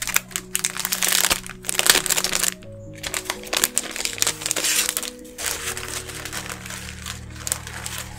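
A clear plastic sleeve crinkling and crackling as it is handled and pulled open around a booklet of watercolour sheets, loudest in the first couple of seconds, with a short pause near three seconds. Soft background music with held notes plays underneath.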